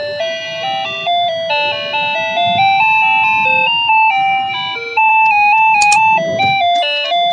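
Wireless plug-in doorbell receiver playing its electronic chime tune: a simple melody of clean, stepped beeping notes through a small speaker. A sharp click comes about six seconds in.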